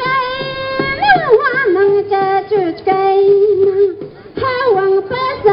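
A woman's high-pitched voice singing a Santiago festival song in long held notes, sliding between them, over a steady beat.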